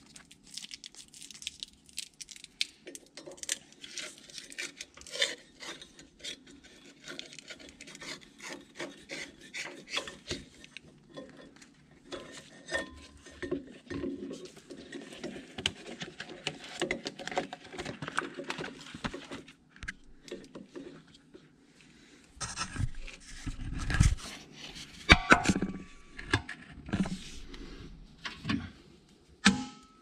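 Hand-handling noise of a skid loader's joystick wiring and rubber joystick boot being fed and fitted into the joystick mount: a run of rubbing, scraping and rustling with small clicks, and a few heavier knocks about three quarters of the way through.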